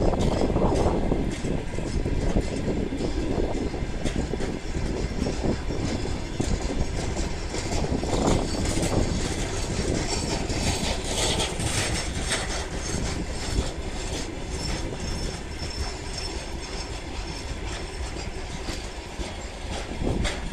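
Covered hopper wagons of a heavy freight train rolling past, with the steady rumble of wheels on rail and a running series of clicks and knocks as the wheels cross rail joints.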